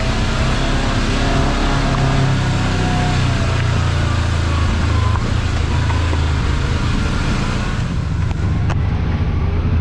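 Kawasaki KRX side-by-side's parallel-twin engine running steadily as it drives along a dirt trail, with a constant hum under the rush of tyres and wind. A single sharp click sounds near the end.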